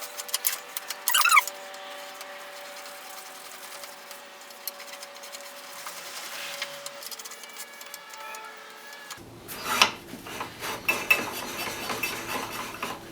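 Hand work on the metal parts of an antique post drill while a stuck part is tried: a few short squeaks at the start, then a quieter stretch with a faint steady hum, then clicks and rattles of metal on metal in the last few seconds.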